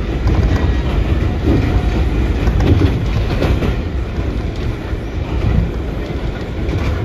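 New York City Subway train running on elevated track: a steady low rumble with occasional clatter of wheels on the rails.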